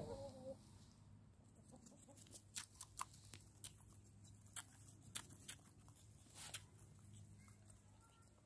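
Orpington hens pecking grain from a hand, faint sharp taps of their beaks, irregular, over several seconds, with a brief soft cluck right at the start.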